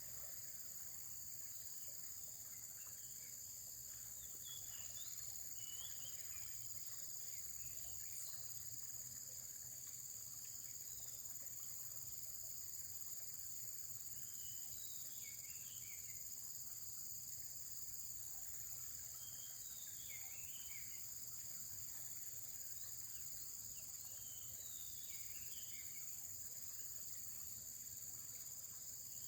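Steady, high-pitched drone of an insect chorus, with short chirping bird calls breaking in every few seconds.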